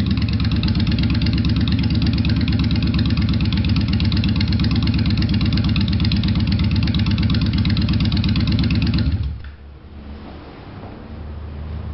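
Muscle-car V8 engine running with a steady, deep rhythmic rumble. About nine seconds in it drops suddenly to a much quieter, lower idle.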